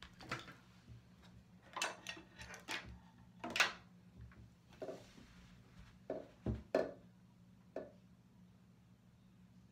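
Scattered light clicks, taps and knocks of makeup things being handled, such as a brush and eyeshadow palette being picked up and worked, over a low steady hum.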